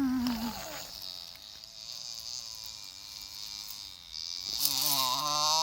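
Staffordshire Bull Terrier whining in long, wavering tones: a brief one at the start, a long fainter one through the middle, and a louder, lower one near the end.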